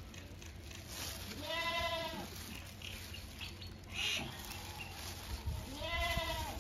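Piglet squealing in distress twice while held upside down by its hind legs, each squeal rising then falling in pitch, with a short noisy burst between them.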